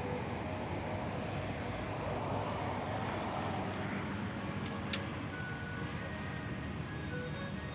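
Daikin air conditioner outdoor unit running with a steady low hum and fan noise, with a single sharp click about five seconds in.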